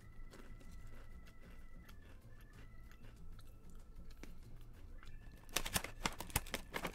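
Faint chewing and crunching of a crumbly cashew-coconut cookie. About five and a half seconds in, a run of loud sharp crackles starts: a plastic snack bag being handled.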